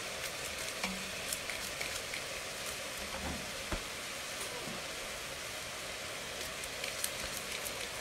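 Onions sweating in a stainless steel pot on the hob, sizzling steadily with scattered small crackles under the broccoli just added on top.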